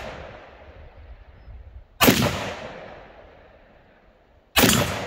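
Two single rifle shots from an AR-15-style rifle, about two and a half seconds apart, each with a long echoing tail. The sound opens on the fading echo of a shot fired just before.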